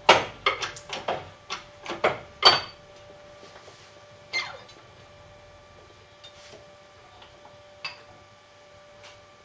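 Sharp metal clinks and knocks of steel half-shaft parts being handled and set on the steel bed of a hydraulic workshop press. About ten come in quick succession at the start, then two single knocks later.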